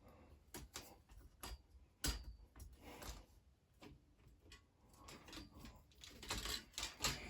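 Parts of an animatronic prop being handled and fitted together: scattered light clicks and knocks, a sharper knock about two seconds in, and a denser run of clatter and rustling near the end.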